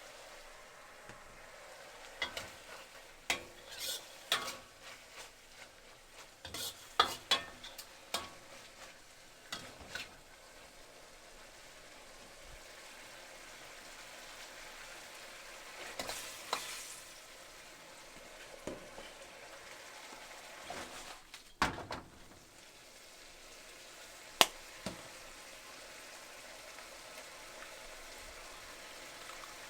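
Food sizzling in a hot pan while a utensil stirs it and knocks against the pan: a steady hiss with clusters of sharp clinks, busiest in the first ten seconds, and a single loud knock about twenty-four seconds in.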